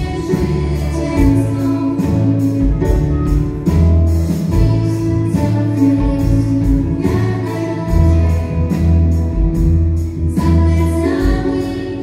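A girls' choir singing with a live band accompanying on keyboards, violin and drum kit.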